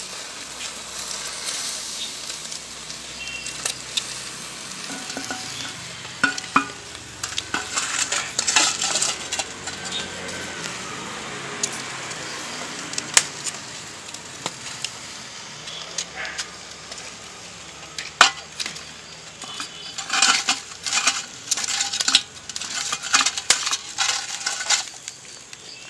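Hot embers crackling and hissing with scattered sharp clicks. Stretches of rattling and scraping come about six seconds in and again near the end, as the banana-leaf-wrapped chicken parcel is dug out of the coals.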